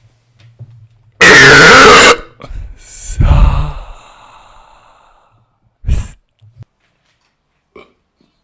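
A man's very loud, clipping burp about a second in. About two seconds later comes a second, deeper gas sound that trails off, and near six seconds a short low one.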